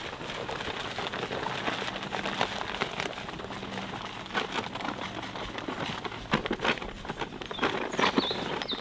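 Sawdust pouring down onto a clay floor, a steady rustling hiss with many small clicks and a few sharper ticks in the second half. It is being spread over sticky clay.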